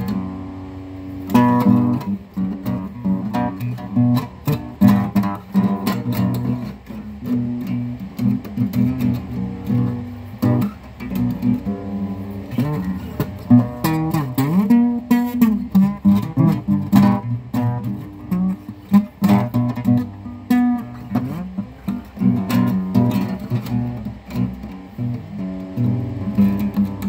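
Guitar music: plucked guitar notes played continuously over a low sustained register.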